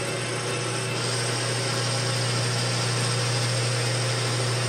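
South Bend 13-inch lathe running with a boring bar taking a light finishing cut inside a metal bore: a steady hum with a high, even whine over it.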